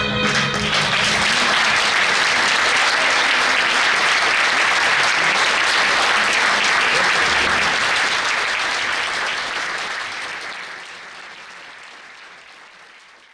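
The last notes of the tango song end right at the start, then a roomful of people applauds steadily. The applause fades away over the last five seconds.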